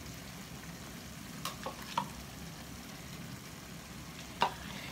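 Tomato stew base sizzling in oil in a pot as hot pepper is scraped in from a plastic bowl, with a few light clicks of the utensil against the bowl and pot, the sharpest near the end.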